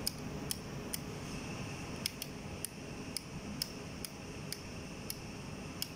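Plastic label gun's band-selector knob clicking as it is turned, a faint tick about every half second as the print band steps from letter to letter.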